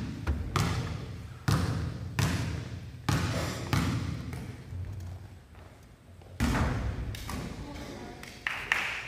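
Basketball bouncing on a gym floor during play: several hard thuds at uneven intervals, each ringing on in the hall, with a lull midway, over a murmur of background voices.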